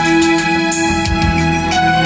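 Recorded music played back over a home stereo's loudspeakers, driven by a Luxman CL35 control amplifier and a Technics SE-A100 stereo power amplifier.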